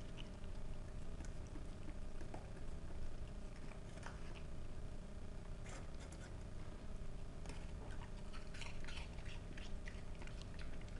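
Pembroke Welsh corgi chewing peanut-butter-covered apple slices and licking them from a stainless steel bowl: scattered wet clicks and smacks, coming thicker in the second half.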